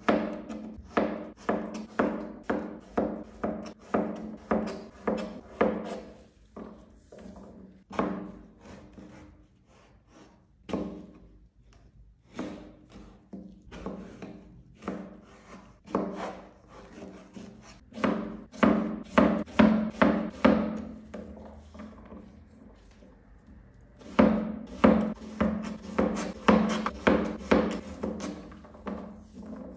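Kai kitchen knife chopping yellow zucchini into cubes on a plastic cutting board: quick runs of crisp chops, two to three a second, each ending in a knock on the board. The chops are slower and softer for a stretch in the middle, then fast again.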